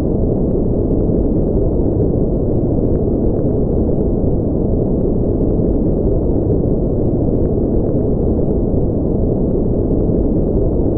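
Steady generated white-noise track: an even, unbroken hiss with its weight in the low end and no treble, so it sounds deep and muffled.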